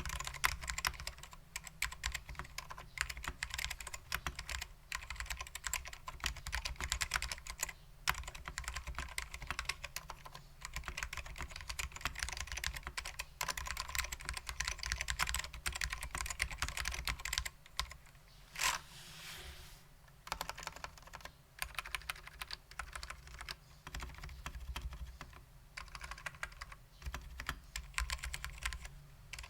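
Continuous fast typing on a 60% mechanical keyboard with lubed SKCM Black ALPS switches in a stainless-steel plate, under PBT ALPS keycaps: a dense run of keystroke clicks. About two-thirds of the way through the typing pauses briefly, and one louder stroke stands out, with a short rattle after it.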